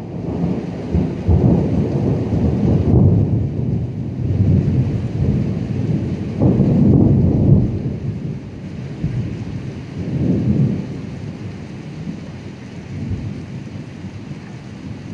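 Rolling thunder rumbling in long waves over steady rainfall, loudest about halfway through and fading off toward the end.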